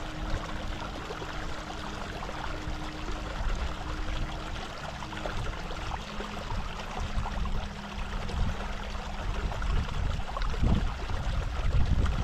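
Shallow stream trickling over stones, with the splashing of hands dipping into the water. Low rumbles come in toward the end.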